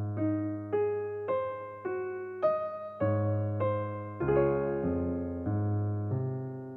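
Calm instrumental background music: a melody of single struck notes that fade, one roughly every half second, over lower bass notes.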